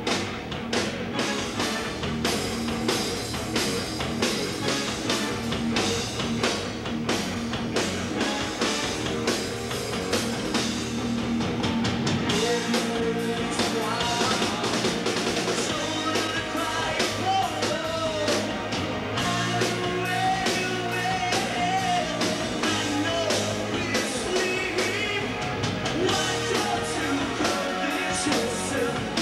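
Rock band playing live: a drum kit hit in a steady beat under electric guitar, with singing.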